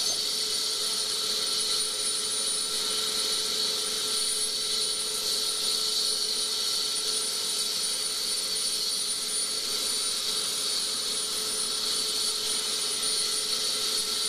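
Air ambulance helicopter's turbine engine running steadily on the ground: an unchanging high whine with no change in pitch or level.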